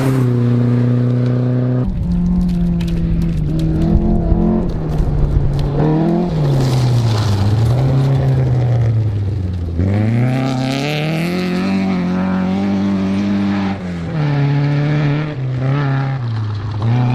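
Rally car engines revving hard as cars pass on a gravel stage. The engine note climbs and drops again and again with gear changes, over several passes one after another.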